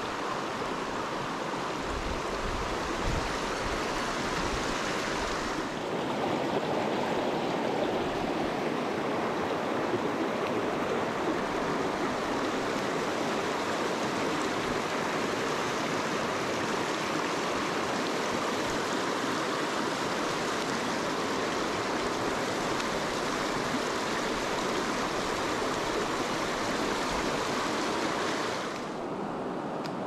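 Mountain stream water rushing over rocks in a steady hiss. The sound grows fuller about six seconds in and turns duller near the end.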